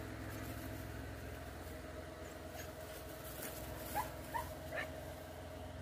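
Three short, high, rising animal squeaks in quick succession about four seconds in, over a steady low machine hum.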